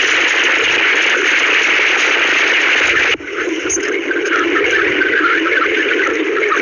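Loud harsh noise like radio static. About three seconds in it changes abruptly to a thinner noise with warbling tones in it.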